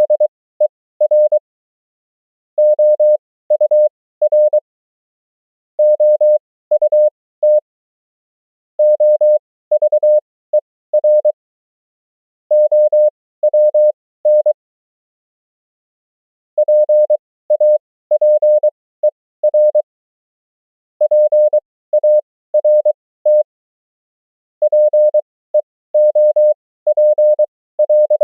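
Morse code (CW) practice tone: a single steady beep keyed on and off in dots and dashes at 20 words per minute, with characters sent at 23 wpm. It spells common amateur-radio words and abbreviations, each word a quick run of beeps followed by a pause of about one to two seconds.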